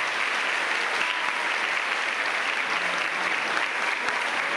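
Audience applauding steadily, with a few faint voices among the clapping.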